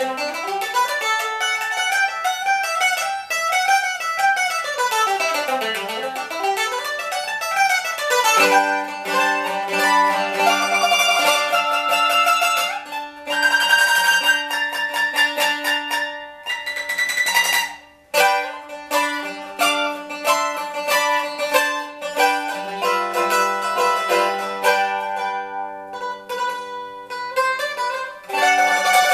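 Handmade Neapolitan-style bowl-back mandolin with fluted maple ribs played solo: quick scale runs sweeping up and down, then passages of rapid tremolo picking, with a brief pause about eighteen seconds in.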